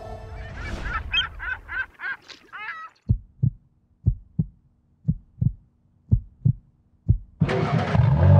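A sound-design intro: a quick run of short, wavering honk-like tones, then a heartbeat effect of paired low thumps about once a second. Near the end a loud car engine sound cuts in.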